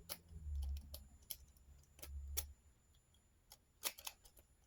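Scattered light metallic clicks of a lock pick raking the pins inside a padlock, with a few low handling bumps in the first half.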